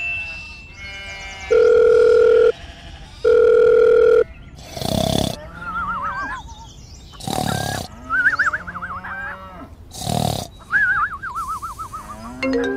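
Two long, steady electronic beeps, then a few short bursts of noise with warbling, wavering whistle-like tones between them.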